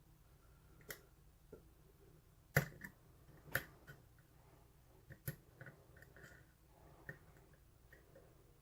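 Faint clicking and light scraping of a lock pick working the pins of a pin-tumbler lock under tension: about five separate sharp clicks, the loudest a little over two and a half seconds in.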